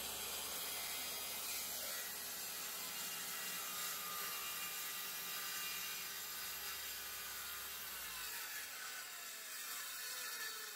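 Circular saw cutting through 3/4-inch plywood, run along a straight-edge guide. About eight seconds in the trigger is released and the blade winds down with a falling whine.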